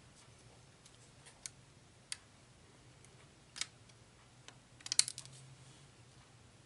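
Light clicks and taps of a craft knife tip lifting small adhesive dots off their plastic sticker sheet and pressing them onto paper, a few single clicks and then a quick cluster about five seconds in.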